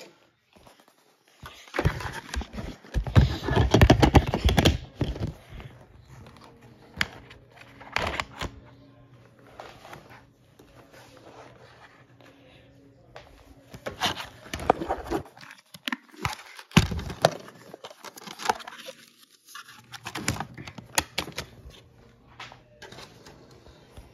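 Handling noise close to the microphone: rustling with irregular clicks and knocks as objects are moved around, loudest in a dense stretch a couple of seconds in and again in shorter clusters past the middle.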